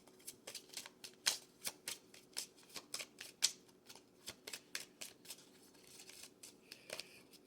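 A deck of oracle cards being shuffled by hand: a quick, irregular run of crisp card clicks and slaps, several a second, thinning out near the end.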